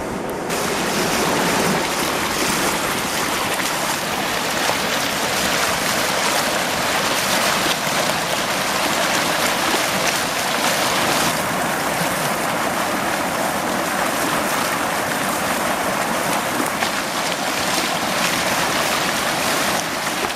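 Flash-flood water rushing through a normally dry desert canyon: a steady, loud rush of churning white water that gets louder about half a second in.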